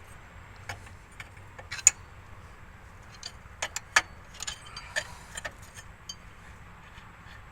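Irregular sharp metallic clinks and taps of hand tools and truck parts, the loudest about two seconds and four seconds in, over a low steady hum.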